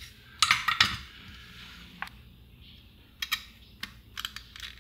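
Small sharp clicks and scrapes of fingers and tools handling a transistor radio's circuit board, wires and parts during soldering, with a dense burst about half a second in and scattered single clicks after that.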